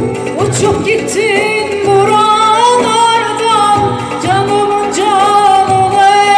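A woman singing a Turkish song live into a microphone, holding long notes with a wavering vibrato, over keyboard accompaniment with a steady beat.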